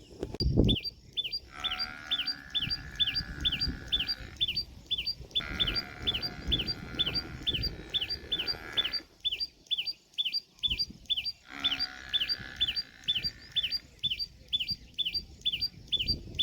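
Common tailorbird calling: a loud, sharp single note repeated evenly about twice a second without pause. A steadier lower sound starts and stops three times behind it, and there is one brief thump in the first second.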